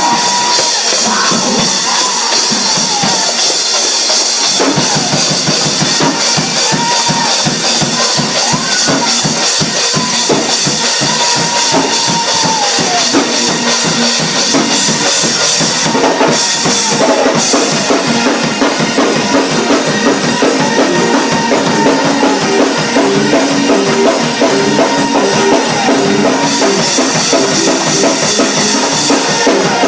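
Loud, fast church music driven by a drum kit, with bass drum and snare hits coming in quick succession.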